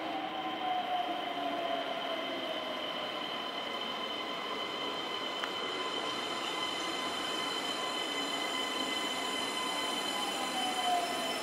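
Keisei AE-series electric train braking into a station. Its Toyo IGBT VVVF inverter whines over steady high-pitched tones, and a falling tone slides down over the first few seconds and again near the end as the train slows.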